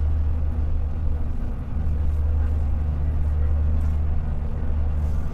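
Passenger train running steadily on the line, a constant low hum and rumble of the moving coach.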